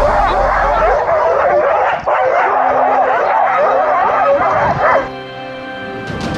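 A sled team of huskies barking and yelping excitedly, many dogs at once in a dense chorus, which cuts off abruptly about five seconds in and leaves background music.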